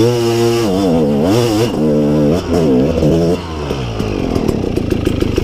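Enduro dirt bike engine revved up and down several times in quick throttle blips, then dropping back to a steady idle about four seconds in.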